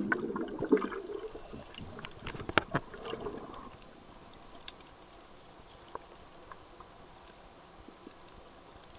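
Muffled underwater sound picked up by a submerged camera: water sloshing with a few sharp clicks over the first few seconds, then fading to a faint steady hiss with scattered ticks.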